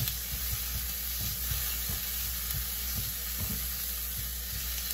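Diced onion and garlic sizzling steadily in avocado oil in a stainless steel frying pan. A kitchen spoon stirs through them, with soft scrapes and taps against the pan.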